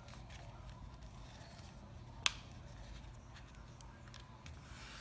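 A sheet of origami paper being folded diagonally and creased by hand: faint rustles and light ticks, with one sharp click a little over two seconds in.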